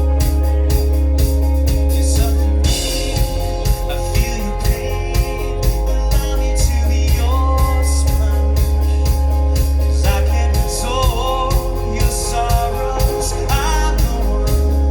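Rock band playing live at full volume: a steady drum beat over heavy bass and sustained guitar and keyboard tones, with a voice singing in the later part.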